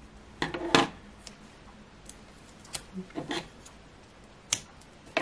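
Scissors snipping small pieces of paper: several short, crisp cuts in a few separate bunches, with pauses between them.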